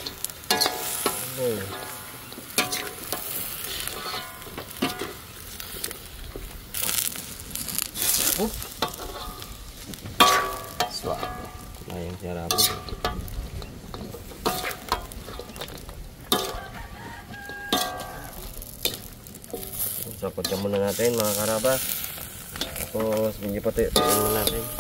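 Food sizzling in a frying pan while it is stirred, with a utensil repeatedly scraping and knocking against the pan.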